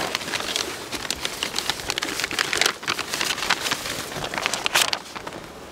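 A plastic foil sheet crinkling and rustling as it is handled and spread over the top of a beehive's frames, in dense irregular crackles.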